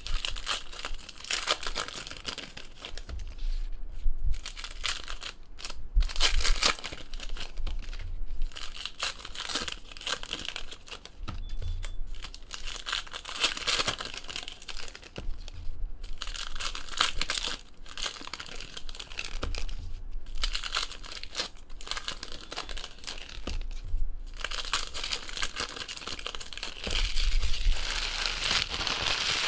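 Baseball card packs being torn open by hand, their wrappers crinkling in irregular spells with short pauses, with a few low thumps.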